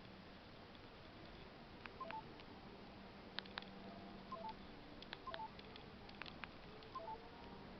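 Faint electronic beeps from an LG A180 mobile phone: a quick blip of two or three short tones, repeated five times at uneven gaps, mixed with light sharp clicks.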